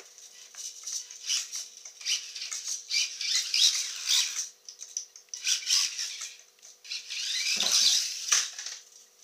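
Losi Micro DT micro RC truck's brushed electric motor and gears whining in repeated bursts, rising and falling as it speeds up and slows on a tile floor. Near the end there is a low thump and a sharp knock as it launches off the ramp and lands.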